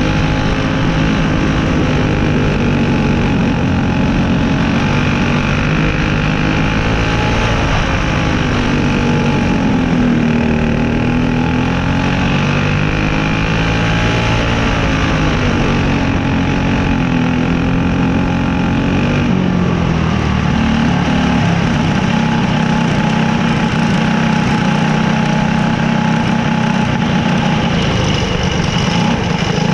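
Small dirt-track race car's engine heard from on board, running steadily with its pitch rising and falling gently as it goes around the oval.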